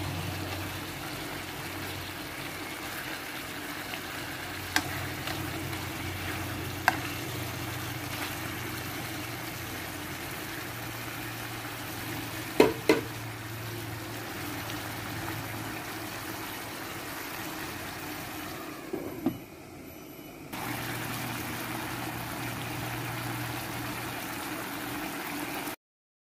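Chicken and oyster mushrooms simmering and sizzling in soy sauce in a pan, a steady bubbling hiss. A few sharp knocks of the ladle against the pan, the loudest a pair about halfway through. The sound cuts off just before the end.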